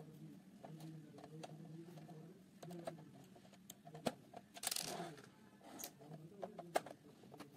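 Screwdriver turning a small screw in the plastic casing of a toy coin bank: scattered light clicks and ticks, with a brief louder scrape about halfway through.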